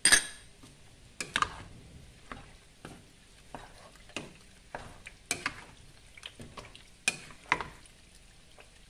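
Wooden spoon stirring chopped fresh tomatoes in a stainless steel saucepan: irregular knocks and scrapes of the spoon against the pot, the sharpest knock right at the start.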